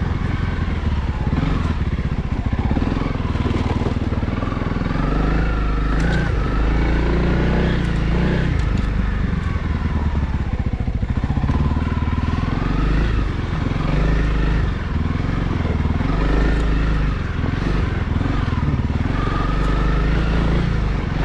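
Honda CRF300L's single-cylinder four-stroke engine running under way in first gear, its revs rising and falling.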